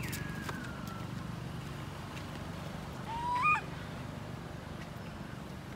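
Baby long-tailed macaque crying: a short falling call at the start and a louder rising call that breaks upward about three seconds in, the cries of an infant left without its mother. A steady low hum runs underneath.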